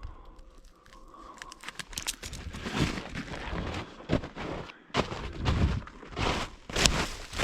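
Footsteps of a person walking, an uneven run of crunching steps that grows louder from about two seconds in.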